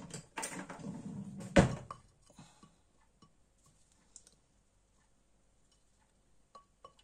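Kitchenware handling: a glass measuring jug and utensils scraping and clinking against a stainless steel bowl, with one sharp knock about one and a half seconds in, then only a few faint clicks.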